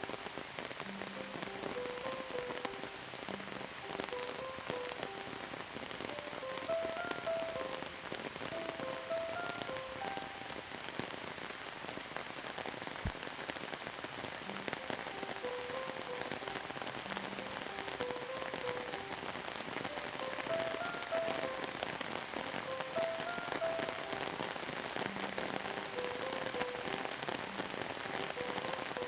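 Steady rain with many fine drops pattering on a surface. Soft, slow music of short, spaced notes runs underneath.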